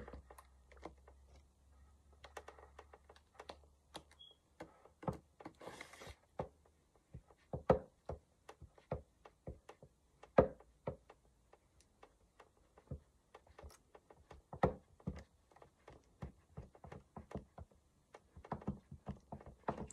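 Soft, irregular clicks and taps of a soldering iron tip being worked along the seam of a 3D-printed PLA helmet, melting the plastic to weld the pieces together.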